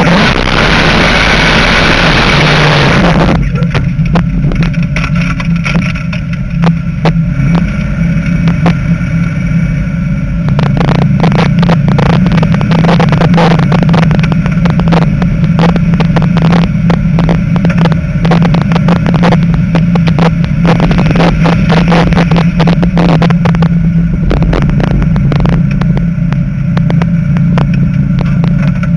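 Dodge Challenger's engine running as the car drives, heard from inside the cabin: a steady low drone. A loud rush of noise lies over it for the first three seconds, and rapid crackling joins it from about ten seconds in.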